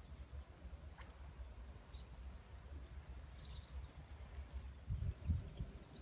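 Quiet outdoor ambience: a low rumble of wind on the microphone, gusting harder about five seconds in, with faint, scattered bird chirps.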